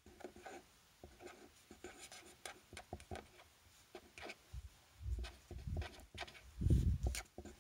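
Fine-tip pen scratching across paper as letters are handwritten in short, quick strokes. Two dull low thumps sound under it, about five seconds in and again near the end.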